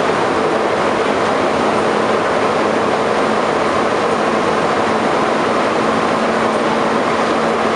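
Montreal MR-73 rubber-tyred metro car running steadily, heard from the car floor: an even rolling noise with the hum of its chopper-controlled traction motors. A steady low tone comes in about two seconds in and stops near the end.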